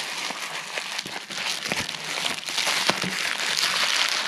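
Plastic bubble wrap crinkling and crackling as it is folded and pressed by hand around a wooden bowl, a dense rustle full of small sharp crackles.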